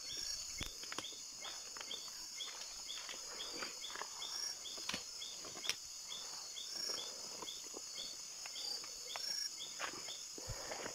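Night insect chorus: a steady high-pitched drone with one chirp repeating about two to three times a second, and scattered short knocks and clicks.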